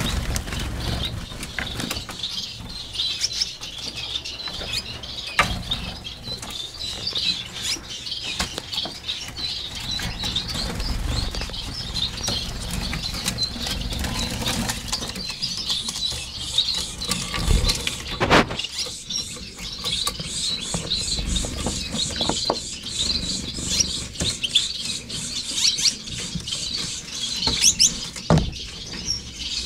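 Finches chirping and twittering in a continuous high-pitched chatter that grows busier in the second half, with a few sharp knocks, the loudest about two-thirds of the way in and near the end.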